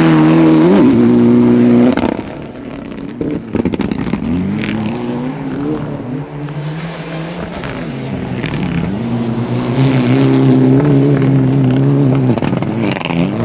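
Mitsubishi Lancer Evolution rally car's turbocharged four-cylinder engine revving hard on a gravel stage, its pitch climbing and dropping with gear changes and lifts. It is loudest in the first two seconds, falls away with a few sharp cracks, then builds again before dropping in pitch near the end.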